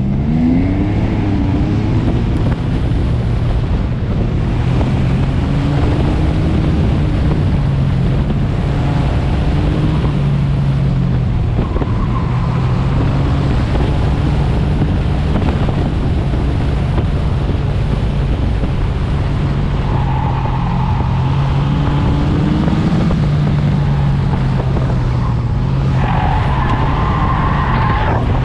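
Car engine working hard through an autocross run, its pitch rising and falling with throttle and gear. The tyres squeal in the corners several times, longest near the end.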